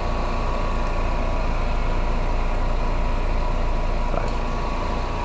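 Steady low mechanical hum with a constant faint tone, running evenly with no change.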